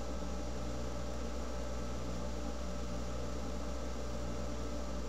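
Steady low electrical hum over a constant hiss, with no other events: the background noise of the recording setup.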